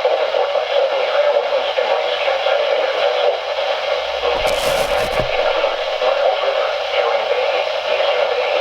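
Weather radio speaker hissing with steady static, a band-limited radio hiss with no clear voice in it. A short knock or bump sounds about four and a half seconds in.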